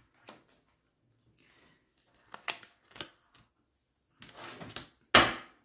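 Tarot cards being handled on a table: a few sharp clicks and taps as cards are squared and laid down, then a short rustle of shuffling and one loud card slap near the end.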